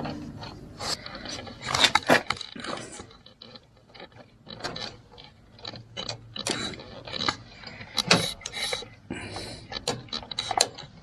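Hand tools working on the metal parts of a riding mower: irregular clicks, scrapes and rattles, loudest about two seconds in and again near the eight-second mark.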